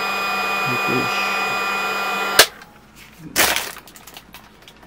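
Cordless drill-driver running steadily as it backs a screw out of the scooter's deck cover, stopping about two and a half seconds in with a sharp click. A short clatter follows about a second later.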